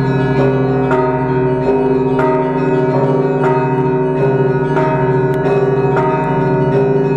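Orthodox monastery church bells of the Pochaiv Lavra ringing together: smaller bells of different pitches struck about every half second over the steady hum of the larger, lower bells.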